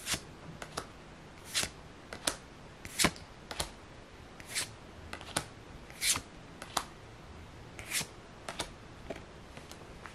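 Pokémon trading cards being flipped through one at a time in the hand, each card slid off the stack and tucked behind with a short sharp snap; about a dozen snaps at uneven intervals, with lighter ticks between.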